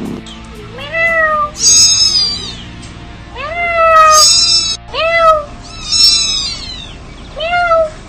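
Young kittens meowing in turn, about six calls, some high and thin and others lower, each rising and then falling in pitch.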